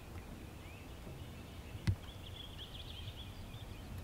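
Quiet open-air ambience with a steady low rumble, and small birds chirping and twittering for about a second a little past the middle. There is one sharp knock about two seconds in.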